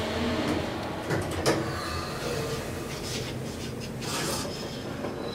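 SMW traction elevator's car doors working: two sharp clicks about a second in, then soft sliding rushes as the door panels move.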